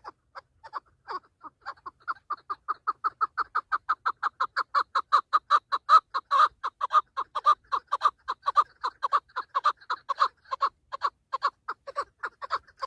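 Chukar partridge calling: a long rapid series of short chuck notes, about five a second, growing louder toward the middle.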